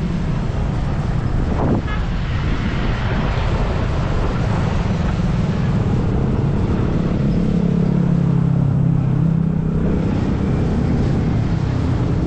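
Small motor scooter engine running with a steady low hum, which grows louder for a few seconds in the middle.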